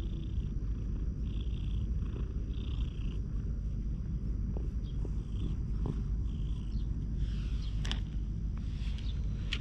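Tabby cat purring steadily close to the microphone, with a soft rustle of fur repeating about every half second as a hand pats the base of its tail.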